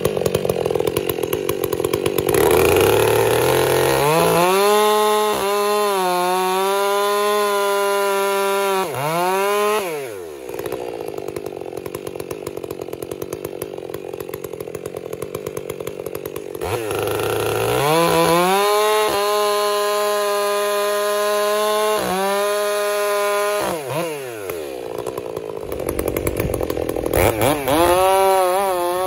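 Stihl gas chainsaw bucking a white oak log: it revs up and runs at a steady full throttle through a cut, drops back to a rough idle, then revs through a second cut. Near the end it revs again with a wavering pitch.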